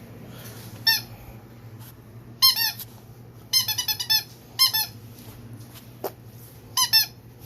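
Rubber squeaky dog toy squeezed in short bursts: a single squeak, then clusters of rapid squeaks, with a pair near the end. A single knock comes about six seconds in.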